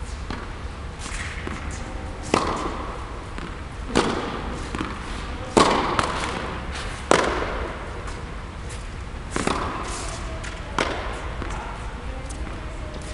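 Tennis rally on a hard court: a ball struck by rackets and bouncing, sharp pops about every second and a half, each echoing in the large indoor hall.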